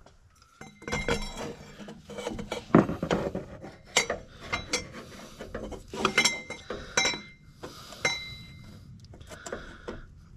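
Metal exhaust pipe and a 45-degree bend knocking and clinking together as they are turned and fitted by hand: irregular metallic clanks, some ringing briefly.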